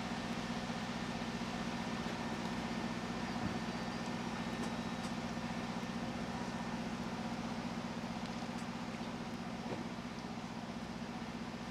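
Tour boat's engine running steadily, a low even hum.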